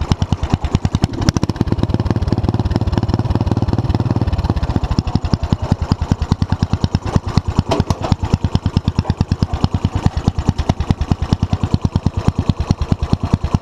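Small engine of a Murray running through a new, nearly finished exhaust. It is revved up about a second in, holds for about three seconds, then drops back to an idle of distinct, even exhaust pulses.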